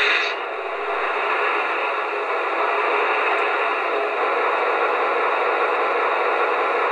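Steady, even hiss with no clear pitch from the sound system of an MTH Railking FM Trainmaster O-gauge model diesel locomotive standing still.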